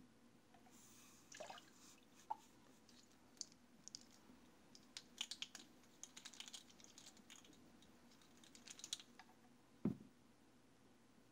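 Faint clicks and light rattles of plastic measuring spoons and a nutrient bottle being handled while a dose of liquid hydroponic nutrient is measured out, with one dull thump a little before the end.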